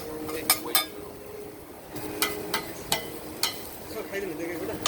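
Metal spatulas clinking and tapping irregularly on a hot iron griddle as okonomiyaki is cooked, with sharp metallic strikes every half second or so.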